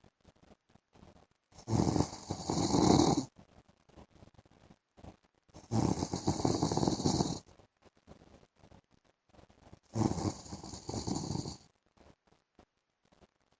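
A man snoring: three snores about four seconds apart, each lasting about a second and a half.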